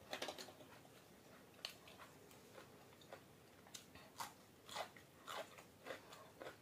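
Faint crunchy biting and chewing of a raw cucumber slice: short crisp crunches, few at first and coming more often in the second half.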